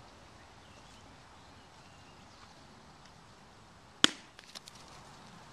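Low outdoor background, then about four seconds in a single sharp smack followed by a few lighter clicks as a plastic traffic cone is swung and struck.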